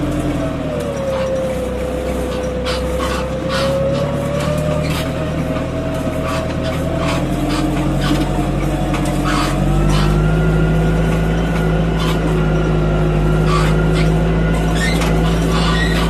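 Deutz-Fahr Agroplus 90 F tractor's diesel engine running while the tractor drives over rough forest ground, with frequent short knocks and rattles. The engine note dips shortly after the start, then climbs and gets louder and fuller about ten seconds in.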